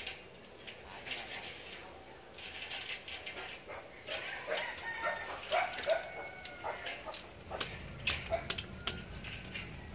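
Chickens clucking in short, repeated calls, mixed with light clicks and taps of metal tongs against a wok.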